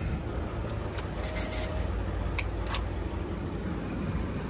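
Diesel van engine idling with a low, steady rumble. A few short rubbing clicks come about a second in and twice more near the middle.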